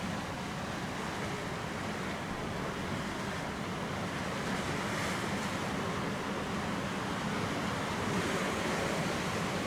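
Ocean surf washing onto a sand beach: a steady rush of waves that swells about five seconds in and again near the end.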